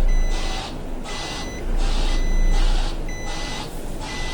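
Recycling lorry's reversing alarm: short, steady beep tones alternating with hissing white-noise pulses in a regular repeating pattern, over the low rumble of the lorry's engine.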